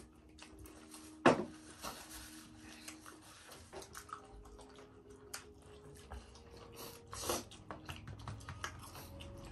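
Quiet eating at a table: scattered clicks and clinks of spoons and forks on plates and glasses, with one louder click about a second in, under a faint steady hum.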